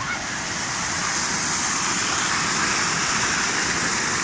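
Small waterfall pouring over a rock ledge and splashing into a pool: a steady rush of falling water that grows louder over the first couple of seconds, then holds.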